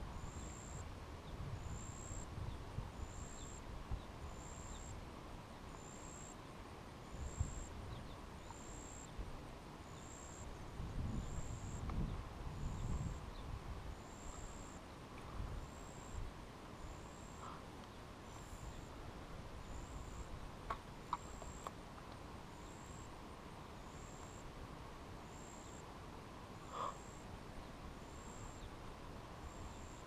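Wind buffeting the microphone in uneven gusts, strongest about a third of the way in. A short high chirp repeats about once a second throughout, and a couple of light clicks come in the second half.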